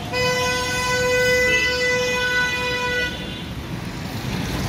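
A vehicle horn sounding in one long steady blast of about three seconds, with a second tone joining about halfway through, over street traffic noise.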